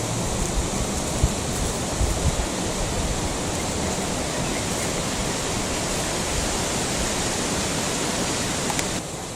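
Steady rush of flowing water, with a few low bumps in the first couple of seconds; the level drops a little just before the end.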